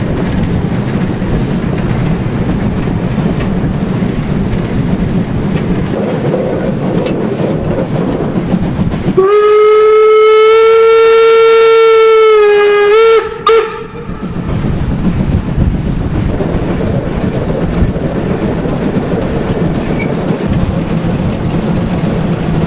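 Steam locomotive 50 3648's whistle sounded in one long blast of about four seconds, a steady pitch that wavers and ends in two short stutters, over the continuous running rumble of the locomotive and its coaches with heavy wind noise.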